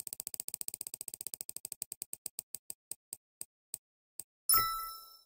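Spinning prize-wheel sound effect: rapid ticks that gradually slow down and stop, then a short ringing tone about four and a half seconds in as the wheel comes to rest.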